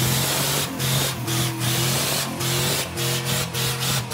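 Pickup truck doing a burnout: its engine is held at high revs with a steady low note, under a loud hiss of spinning, smoking tyres. The sound stutters with many brief gaps.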